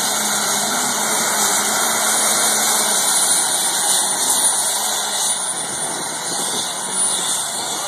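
Super stock pulling tractor's turbocharged diesel engine running at full power, loud and steady, as it drags the weight sled with its rear tires spinning. A thin high whine runs through it from about two seconds in until near the end.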